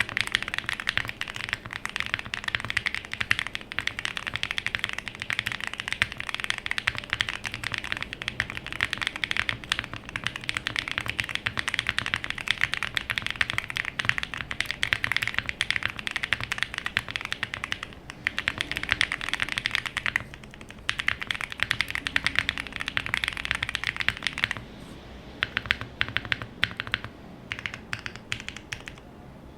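Typing on an Owlabs Link65 65% mechanical keyboard with unlubed Qeekee tactile switches, an FR4 plate, leaf-spring mounting and CRP Fujin keycaps: a rapid, steady stream of keystrokes with a couple of brief pauses. Near the end the strokes turn slower and separate, as the modifier keys are pressed.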